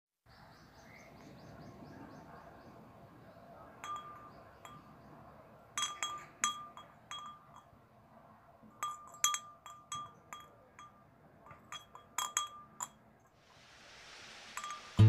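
Wind chimes ringing in scattered, irregular strikes over a faint steady hiss, with a rising hiss near the end.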